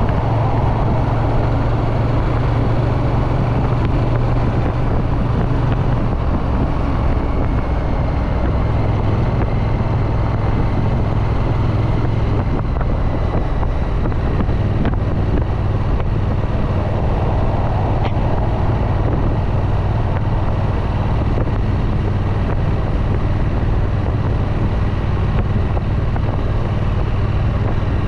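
Triumph Street Twin's 900 cc parallel-twin engine and exhaust running steadily under way, the engine pitch shifting only slightly, with wind rush over the microphone.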